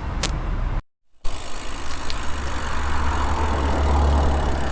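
Motor vehicle passing the bicycle on the road: a steady low engine drone and tyre hiss that build up about three to four seconds in. The sound cuts out completely for a moment about a second in.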